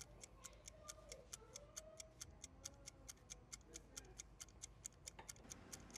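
Faint, fast clock ticking, about five ticks a second, laid over a clock animation to mark the heat press's timer counting down.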